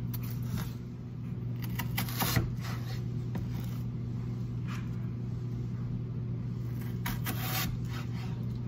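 Chef's knife slicing raw potato into fry strips on a plastic cutting board: a few scattered knocks and scrapes of the blade, the loudest a couple of seconds in. A steady low hum sits underneath.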